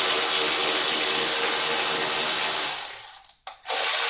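Cordless electric ratchet with a 10 mm socket whirring as it runs a bolt out on the engine, stopping briefly near the end and starting again.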